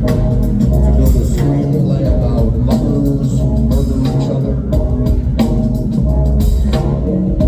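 A live band playing an instrumental passage with a heavy, steady bass line and regular drum hits.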